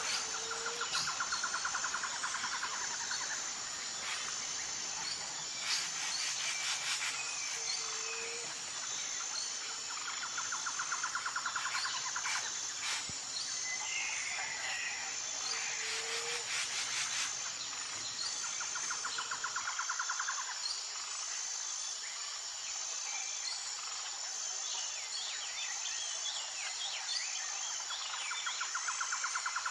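Outdoor nature soundscape of insects and birds. A steady high insect buzz runs throughout, and a pulsed trill of a couple of seconds repeats about every nine seconds. Scattered bird chirps and a few short rattles come between the trills.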